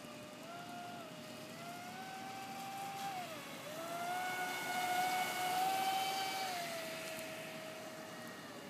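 Traxxas Spartan RC boat's brushless electric motor whining as the boat runs at speed, its pitch rising and falling with the throttle. The whine dips briefly about three and a half seconds in, is loudest a little past the middle, then settles to a lower, steady tone.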